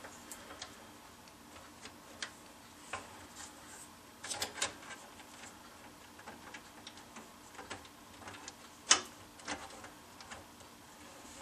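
Scattered small clicks and taps of a screw and a plastic fan frame against a steel case panel as a fan-mounting screw is fiddled into its hole by hand. The clicks come irregularly, a few at a time, the loudest near the end.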